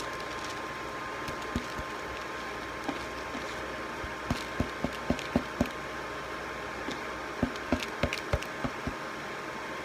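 Green plastic bowl being tapped against the rim of a steel cooking pot to knock soaked rice out into the broth: two runs of quick, light knocks, about three a second, starting about four seconds in and again near the end, over a steady background hum.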